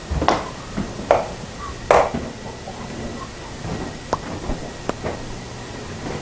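Scattered sharp taps and knocks, three louder ones in the first two seconds and a few lighter ones later, over a steady faint room hum.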